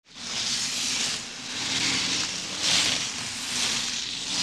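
Logo intro sound effect: a wind-like hiss that swells and fades about four times.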